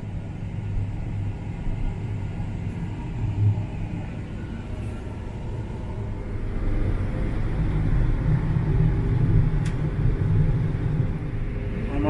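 Combine harvester running, heard from inside the cab: a steady low engine drone that gets louder about seven seconds in.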